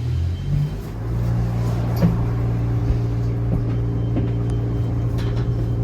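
Stationary New Flyer XT60 trolleybus with its on-board auxiliary equipment humming: a low tone rises briefly at the start, then a steady electric hum with a few higher steady tones sets in about a second in.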